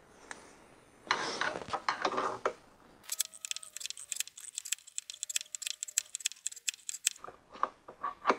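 A screwdriver pushing the piston of a new brake master cylinder during bench bleeding, forcing fluid and air bubbles back through the bleed tubes: a rustle about a second in, then several seconds of rapid light clicking and rattling, with a few more clicks near the end.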